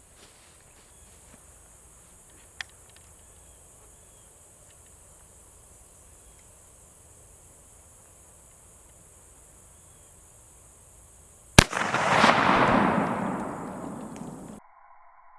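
Ruger Deerfield .44 Magnum carbine firing a single shot about three-quarters of the way in, a sharp crack followed by a loud rush of noise that fades over a few seconds. Before it, a steady high insect buzz and one small click. The sound cuts off abruptly after the shot and is replaced by a steady electronic tone.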